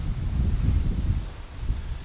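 Gusty wind from a thunderstorm's shelf cloud buffeting the microphone in uneven low rumbles, with insects chirping faintly in a steady high rhythm behind it.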